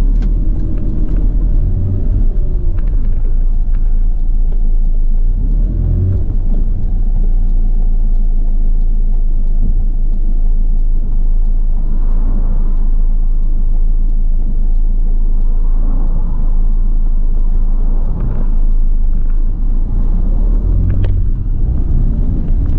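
2010 Fiat Ducato van's diesel engine accelerating through the gears, heard from inside the cab. The engine note rises and then drops back at each gear change, several times over, above a steady low road rumble.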